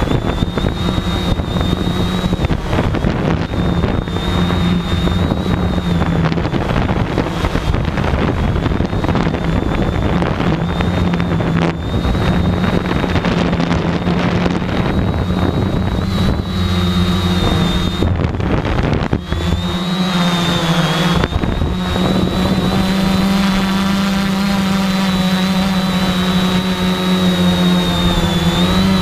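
Quadcopter drone's electric motors and propellers running, heard from the drone's own camera: a steady low hum with a high whine whose pitch wavers slightly as the motors adjust, over rough wind-like noise.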